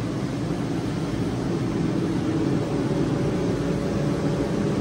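Shop heater running with a steady, even rushing noise.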